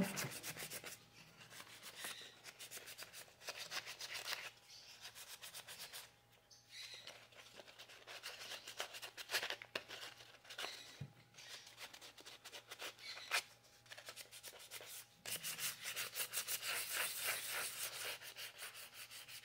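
Hand sanding: sandpaper rubbed in quick back-and-forth strokes over the newly made, dried fingers of a wooden statue as a light finishing polish, in several runs with brief pauses between them.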